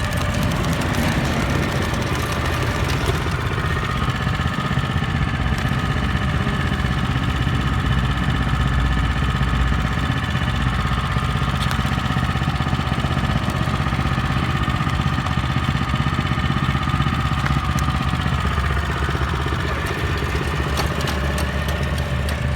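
Small engine of a Japanese walk-behind tiller running steadily, with the machine moving along in a slow gear.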